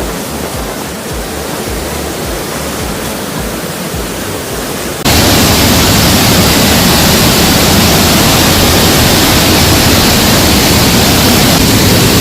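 Waterfall rushing, a loud steady noise of falling water that jumps suddenly louder about five seconds in.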